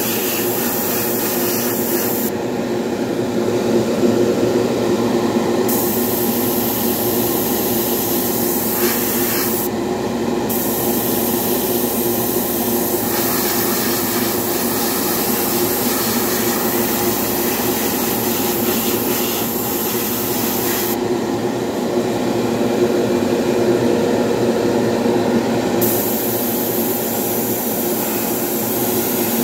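Airbrush spraying with a steady hiss of air over the constant drone of the painting setup's motor. The hiss cuts off sharply for a few seconds about two seconds in, again for a moment around ten seconds in, and again for several seconds past twenty seconds.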